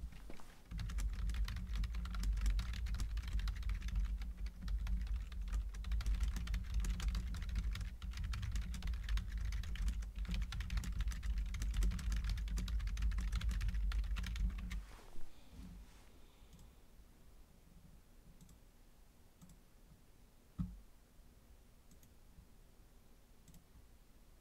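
Fast typing on a computer keyboard, a dense run of key clicks with a dull thudding underneath, which stops about fifteen seconds in. One more single click comes some five seconds later.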